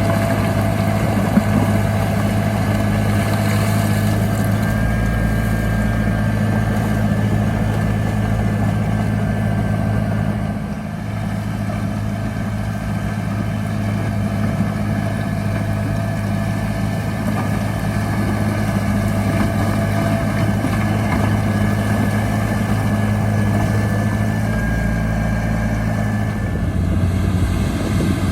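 Heavy earthmoving machine's diesel engine running steadily, with a constant low hum and a brief drop in loudness about eleven seconds in.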